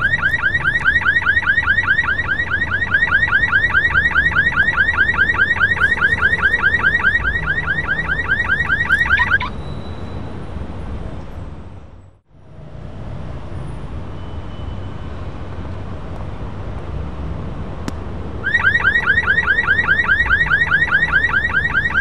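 Car alarm going off, a fast-repeating rising chirp at about five chirps a second over a low street rumble. It stops about nine seconds in and starts again about eighteen seconds in.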